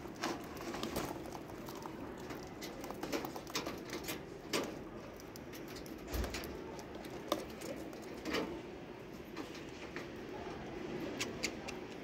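Budgerigars cracking and husking seed from a heaped tray: a run of small, irregular clicks and seed rattling, with the sharpest pecks about four and a half and seven seconds in.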